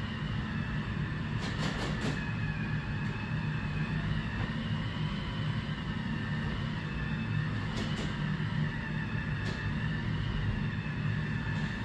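Robot vacuum-mop running across a hard floor: a steady motor hum under a higher whine that wavers slightly in pitch. A few short sharp clicks come about two seconds in and again around eight and nine and a half seconds.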